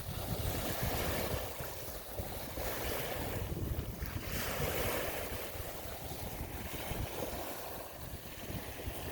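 Waves washing on a bay, a noisy surge that rises and falls every second or two, with wind rumbling on the microphone.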